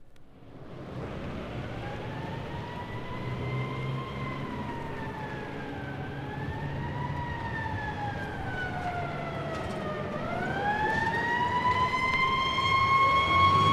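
A siren wailing, its pitch rising, sagging twice and climbing again to hold steady while it grows louder, with a low engine rumble underneath.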